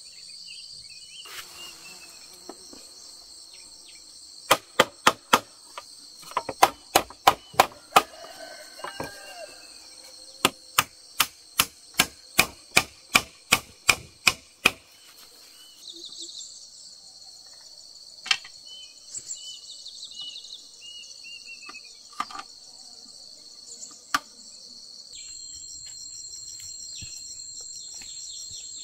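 Steady high buzzing of insects, with a run of about twenty sharp knocks at roughly three a second from about four seconds in, stopping about halfway through. A few single knocks follow later.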